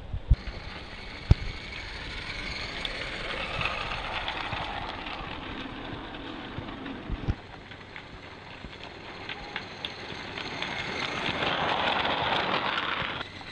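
Small live-steam Accucraft Ruby locomotive and its log cars running on garden-railway track: a steady hiss with scattered clicks of wheels on the rails. It grows louder near the end as the train passes close.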